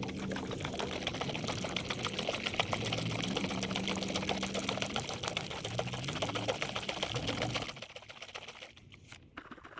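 A can of black paint being shaken hard, giving a fast, steady rattle with some sloshing that stops about eight seconds in.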